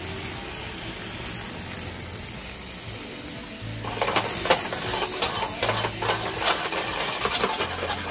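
Pan of bananas in butter and brown sugar sizzling over a gas burner during a rum flambé: a steady hiss, then dense sizzling and crackling from about four seconds in. Soft background music underneath.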